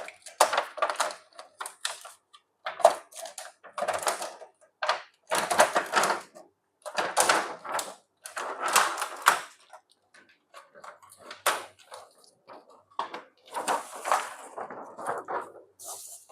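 Handling noises from an opened LED TV being worked on by hand: irregular bursts of rustling, scraping and light knocks, about a dozen of them, each lasting up to a second.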